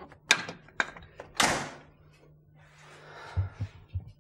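Handling noise from a handheld camera being moved about: several sharp knocks and clicks, a louder rustling clunk about a second and a half in, then a soft rustle with a few low thuds near the end.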